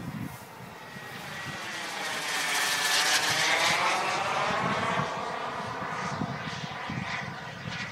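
Wren Super Sport model jet turbine on a Boomerang Nano RC jet flying past overhead: a jet whine and rush that swells to its loudest about three seconds in, then slowly fades, with a sweeping change in tone as it passes.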